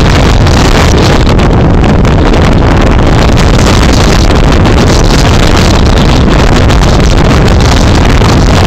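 Strong storm wind buffeting a phone's microphone in a steady, very loud rumble, with heavy surf breaking on the beach underneath.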